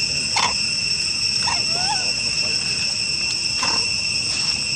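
Steady, high insect chorus of crickets or cicadas. It is broken by a few short squeaks and, about two seconds in, one brief call that rises and falls.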